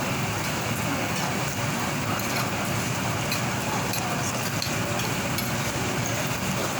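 Steady rain falling, an even hiss with faint ticks of drops.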